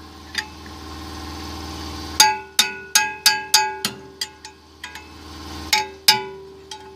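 Metal hand tools clinking and knocking against the steel of the chipper while its blade nuts are fitted and tightened. There is a quick run of six ringing clinks, then two more about two seconds later, over a steady low hum.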